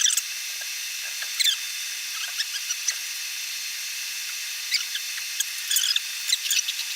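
Hand work fitting wooden plugs into holes in an oak slab: scattered small clicks and scrapes over a steady hiss, in a short cluster about a second and a half in and a longer run near the end.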